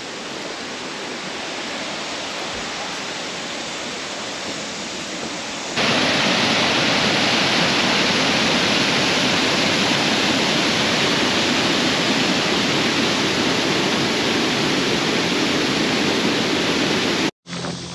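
Steady rush of falling water from the spring-fed creek. About six seconds in it steps up louder and fuller, and it stops abruptly near the end.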